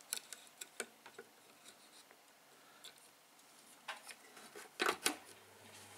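Small clicks and taps of the Elfa-7 record player's carbolite tonearm and turnover cartridge being handled, with the arm set down on its rest; louder knocks come about four seconds in and, loudest, just before five seconds. A faint low steady hum sets in near the end.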